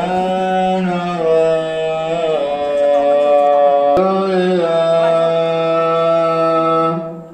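One voice chanting or singing long, held notes that waver and slide between pitches, with a short break for breath near the end. No diesel engine running is heard.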